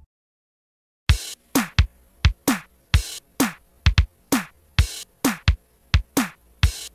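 About a second of silence, then an electronic drum-machine beat starts: punchy kick hits with a quickly falling pitch, about two to three hits a second.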